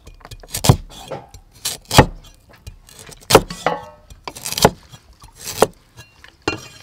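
Cleaver chopping through ginger root onto a thick wooden chopping block: irregular sharp knocks, one or two a second.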